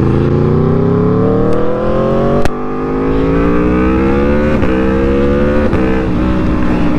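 2014 Aprilia RSV4's V4 engine with a full aftermarket exhaust accelerating, its pitch climbing steadily, then dropping back with quick upshifts about two and a half seconds in, near four and a half seconds and near six seconds, each followed by a fresh climb.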